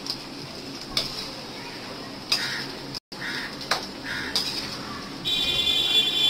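Potato chunks frying in hot oil in a steel kadhai, with a metal slotted spoon clinking and scraping against the pan about five times. Near the end a steady, high-pitched tone joins in.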